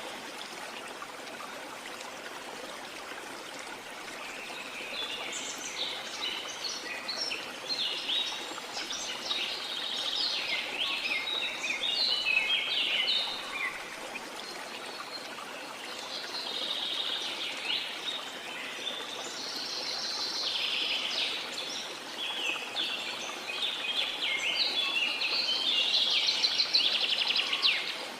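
Birds singing in phrases of quick, high chirps and trills over the steady rush of a waterfall. The birdsong comes and goes in several bouts, loudest about halfway through and near the end.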